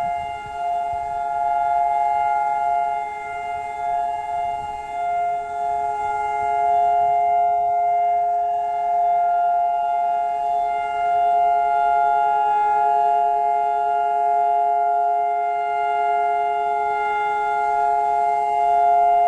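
Israeli civil-defense siren sounding its steady, unwavering memorial tone, several pitches held together without rising or falling: the Holocaust Remembrance Day siren, not the wailing attack alert. The level wavers a little in the first few seconds, then holds steady.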